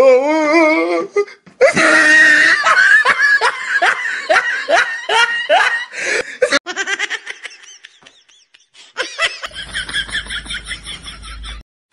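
Laughter in quick repeated bursts, broken by abrupt cuts, with a low hum under the last stretch near the end.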